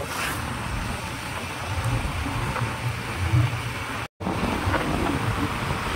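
Steady running noise of a vehicle moving along a road, with wind buffeting the phone microphone. The sound cuts out completely for a split second about four seconds in.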